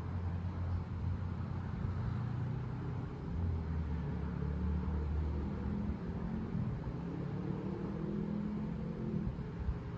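Low steady engine hum, its pitch stepping slightly up and down, with a haze of road-like noise.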